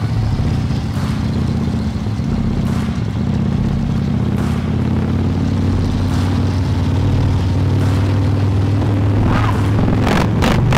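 Two Harley-Davidson V-twin motorcycles, one with a Jekill & Hyde valve exhaust, cruising together with a steady low engine rumble. There are a few short sharp bursts of noise near the end.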